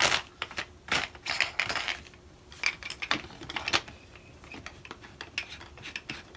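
Small plastic hand pump clicking and rubbing on the valve of a vacuum storage bag as it is fitted and worked, with crinkling of the bag's plastic. The sounds come in short, irregular bursts.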